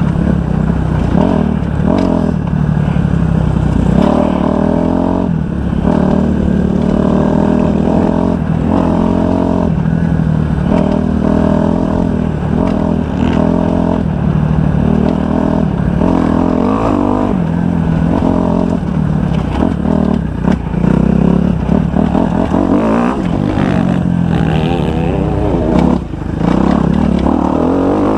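Kawasaki 250 motocross bike engine being ridden hard, revving up and falling back again and again every second or two as the throttle is opened and shut, with a short drop in level near the end.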